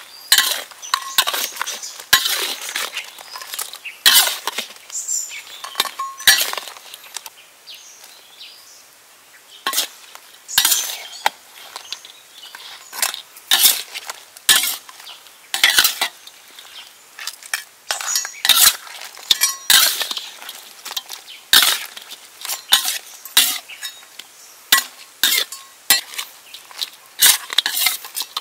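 Metal spatula scraping and clanking against a stainless steel wok as shell-on prawns and crabs are stir-fried, in quick irregular strokes with a lull of about two seconds some eight seconds in.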